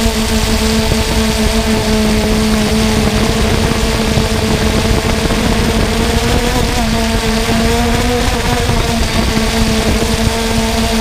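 3DR Solo quadcopter's motors and propellers humming steadily in flight, heard close up from the camera aboard the drone, over a constant rush of air. The pitch wavers slightly about two-thirds of the way through.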